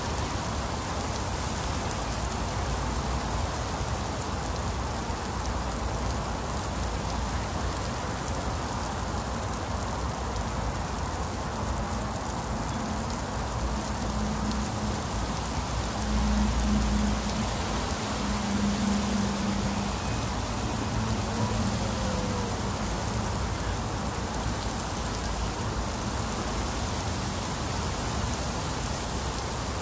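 Very heavy rain falling steadily. A low drone swells for several seconds in the middle, then fades.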